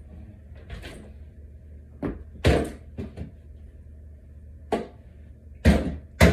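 Knocks and bangs from a flat-pack particleboard dresser being handled: about five sharp hits like drawers or panels being shut, the loudest about two and a half seconds in, over a steady low hum.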